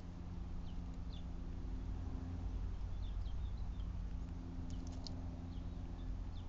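Small birds chirping: short, high chirps scattered through, a quick cluster near the end, over a steady low hum.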